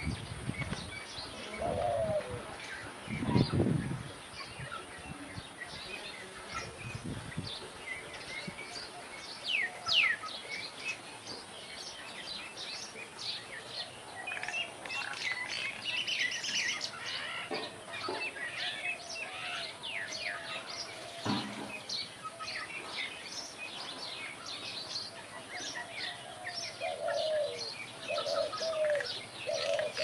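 Birdsong in the background: many small birds chirping, with short chirps scattered densely throughout and a few lower wavering calls. There is a brief low rumble about three seconds in.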